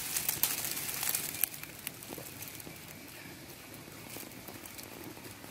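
Light crackling clicks and rustling, densest in the first second and a half and then sparser, over a steady hiss: handling and sucking noise from a baby monkey drinking milk from a plastic bottle.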